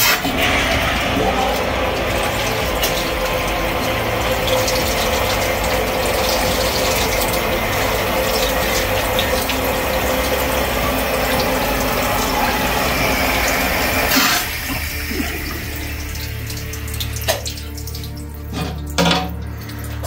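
Water pouring steadily from the drain valve of a 50-gallon electric water heater and splashing onto a concrete floor as the tank is flushed of sediment. The rush drops off about fourteen seconds in, leaving a quieter flow.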